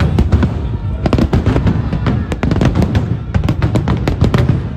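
Fireworks display: many sharp bangs and crackles in quick, irregular succession over a continuous low rumble.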